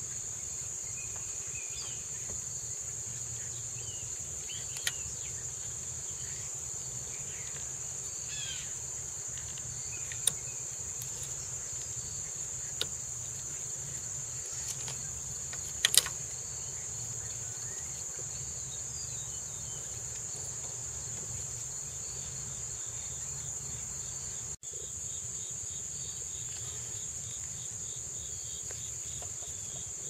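A steady, high-pitched chorus of insects, with a low hum underneath. A few sharp clicks break in, the loudest about sixteen seconds in, as the plastic wiring connector is handled.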